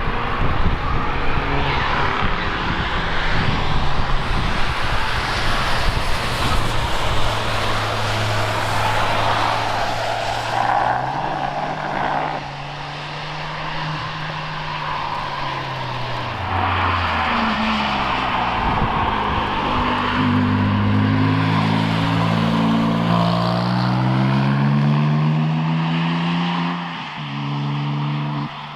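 Cars driving past at speed over a steady rush of tyre and wind noise. In the second half an engine note climbs several times in steps, as it is revved up through the gears.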